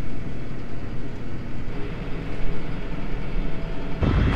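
Tractor engine running steadily, heard from inside the cab as a low hum. Near the end it turns abruptly louder and rougher as the sound switches to the tractor heard from outside.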